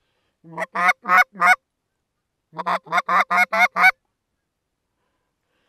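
Goose honks, loud and close: a run of about four starting half a second in, then a quicker string of about seven near the middle.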